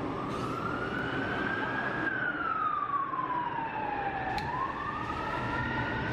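SkyTrain car's linear induction motor whining, its pitch following the train's speed: rising for about two seconds, falling for about two more, then turning and rising again, over a steady higher tone and a low rumble.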